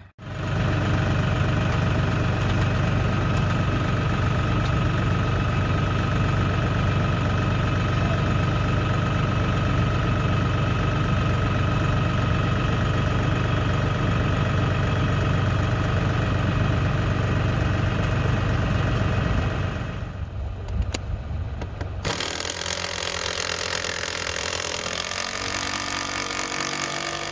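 Compact diesel tractor engine idling steadily. About twenty seconds in it drops away briefly, then a quieter engine drone carries on.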